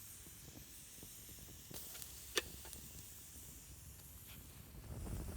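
Faint steady hiss of background noise, with a single sharp click a little over two seconds in.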